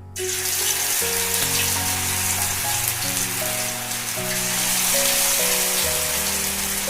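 Batter-coated chicken pakoras frying in hot oil in a kadai: a loud, steady sizzle that starts suddenly as the pieces go into the oil.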